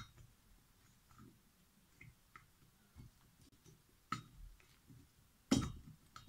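A few light clicks and knocks of metal parts as a small two-stroke engine's cylinder head is worked down over the piston and ring onto the crankcase, with the loudest knock about five and a half seconds in.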